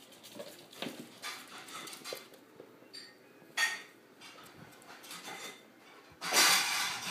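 A small dog moving about at close range: short breathy noises and light scuffles, then a louder rustling burst about six seconds in as its fur comes right up against the microphone.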